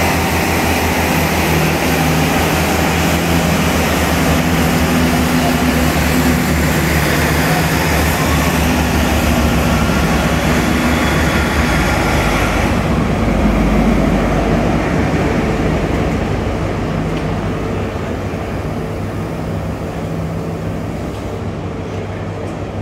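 A diesel train running close by: a low engine throb with steady whining tones over rail noise, loud at first, then easing off and fading over the last third.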